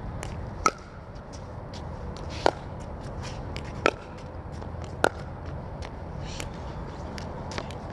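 Pickleball rally: four sharp pops of paddles striking the plastic ball, spaced a second or two apart and coming slightly faster as the rally goes on, with fainter clicks between.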